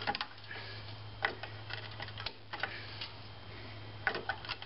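Scattered light metal clicks and ticks as a hold-down spring tool is worked against the rusted shoe hold-down spring and pin of a Dodge Caravan rear drum brake, the cap and pin rusted together so the whole pin turns. A low steady hum runs underneath.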